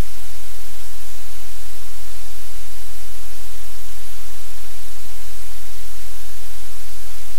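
Loud, steady static hiss over a low, constant hum from the live cam's audio feed, unchanging throughout.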